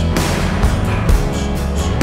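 Music with sustained bass notes and a steady beat.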